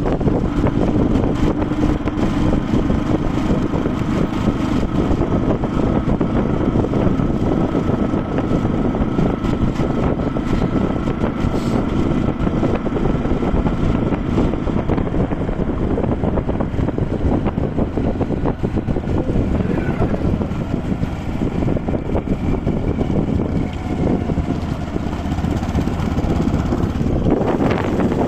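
A motor running steadily, with wind noise on the microphone.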